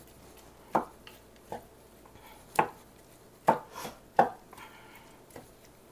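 Wooden spoon stirring ground meat in a frying pan, knocking against the pan about seven times at uneven intervals.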